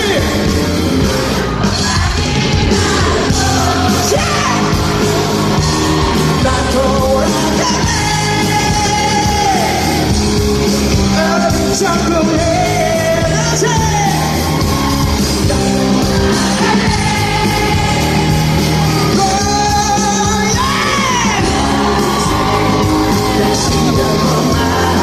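Live rock band performance with a male lead vocalist singing long, gliding held notes over a steady band accompaniment.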